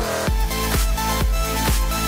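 Electronic dance music with a steady beat of about two strokes a second under a repeating melody.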